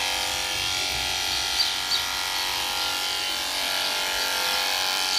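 Handheld electric horse clippers running at a steady pitch as they shave a horse's coat. Two short high chirps come about one and a half and two seconds in.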